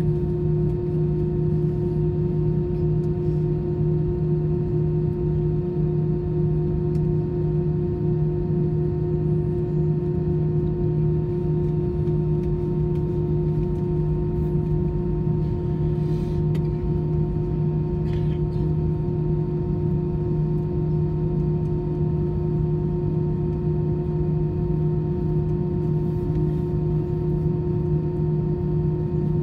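Airbus A319 cabin noise while taxiing: a steady hum from the idling engines and the air conditioning, made of a low tone and a higher tone over a constant rush of air.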